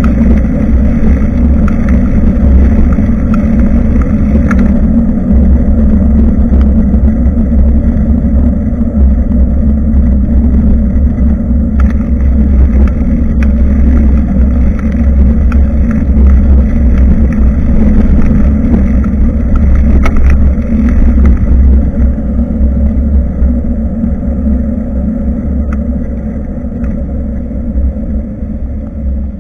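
Wind buffeting on a bicycle-mounted action camera's microphone while riding, a loud steady low rumble mixed with tyre and road noise. It eases off over the last few seconds.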